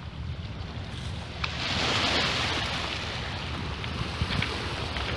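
Small sea waves washing onto a rocky shore, one wash swelling about a second and a half in, with wind rumbling on the microphone.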